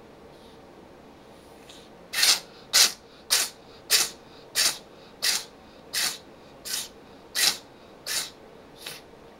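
A house cat sneezing about eleven times in a row, one sharp sneeze roughly every two-thirds of a second, the sneezes mostly growing weaker toward the end. The fit is set off by a booger irritating its nose.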